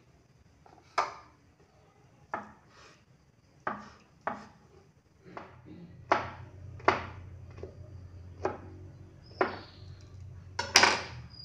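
Kitchen knife cutting through soft tofu and knocking on a wooden cutting board: about a dozen separate chops, roughly one a second, the loudest near the end.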